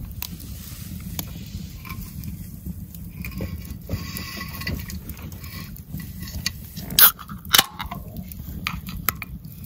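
Two beer cans cracked open, one sharp snap each, about half a second apart, about seven seconds in.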